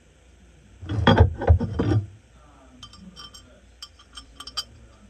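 Small metal hardware being handled: about a second of loud rattling clatter, then a run of light metallic clinks.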